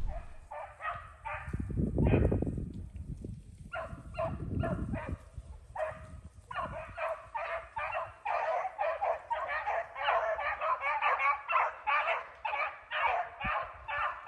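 A pack of beagles baying as they run a rabbit. A few scattered barks come first, then from about six seconds in a thick chorus of several dogs giving tongue together. Two low rushes of noise on the microphone, about two and four and a half seconds in, are briefly the loudest sound.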